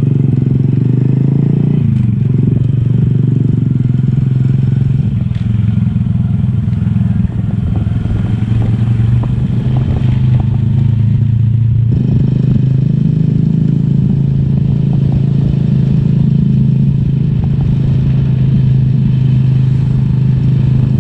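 Small motorcycle's engine running steadily while riding, heard close up from on board, with a low steady hum; the engine note changes about twelve seconds in.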